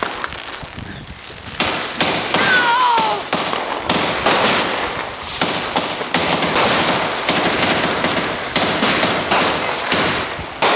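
Fireworks going off in quick succession from about a second and a half in: a continuous sparking hiss with sharp cracks and pops every half second to a second. A short falling whistle comes a little after two seconds in.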